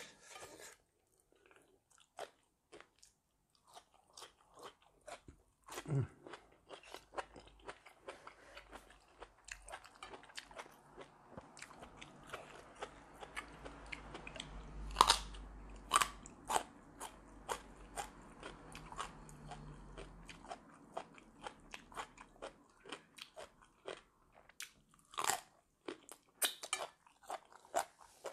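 A person chewing crunchy raw vegetables and food close to the microphone, with a steady run of crisp crunches and wet mouth clicks that grow denser after the first few seconds.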